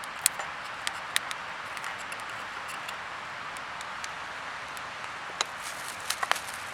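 Acacia firewood burning in a fire pit: a steady hiss of flames with sharp pops and snaps here and there, and a quick cluster of pops near the end.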